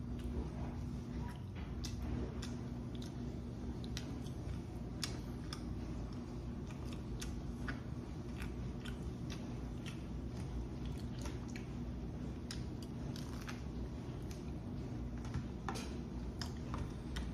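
A person chewing and biting food, with many short, irregular mouth clicks and smacks throughout, over a steady low hum.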